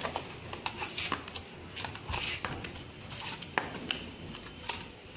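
Scattered light clicks, taps and rustles of plastic blister cups and steel-wool scourers being set by hand into the cavities of a blister sealing machine's mould plate.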